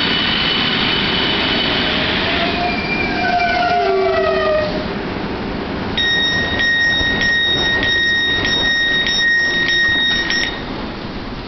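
Class 395 Javelin electric train braking into the platform, its high traction-motor whine falling in pitch until it comes to a stand about five seconds in. About a second later the door-release alarm sounds, a steady two-tone beep pulsing under twice a second, and stops with a sharp click near the end as the doors are released.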